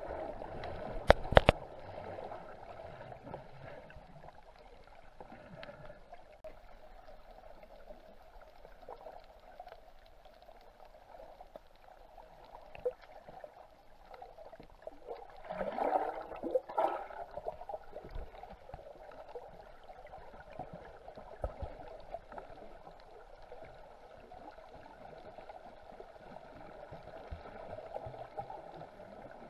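Muffled underwater water noise picked up by a camera held under the surface while snorkelling over a coral reef, a steady hiss. A few sharp clicks come about a second in, and a louder swishing sweep rises and falls in pitch about halfway through.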